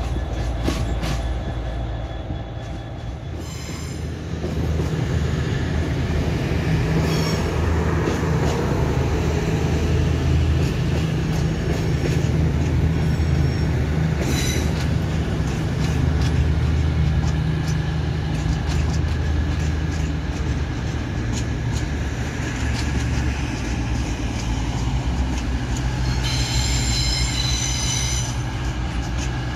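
CrossCountry Class 220 Voyager diesel multiple unit pulling out, its underfloor diesel engines running with a steady low hum. High-pitched wheel squeal on the curving pointwork sets in near the end.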